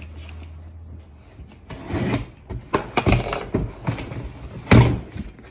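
Cardboard box being opened and rummaged through: a run of rustles, scrapes and knocks, the loudest knock a little before the end.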